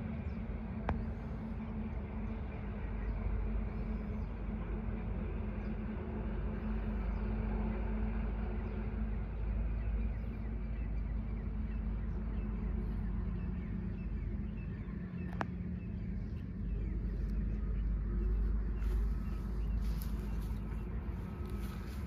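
A distant engine running steadily: a constant low rumble with a steady hum.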